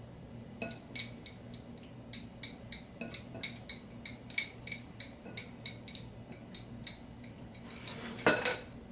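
Small whisk clinking against a white bowl as a thick sauce is stirred: irregular light ticks, a few a second, with a louder clatter about eight seconds in.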